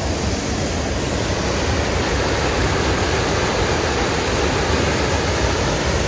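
Waterfall: falling water making a steady, even rush that does not change.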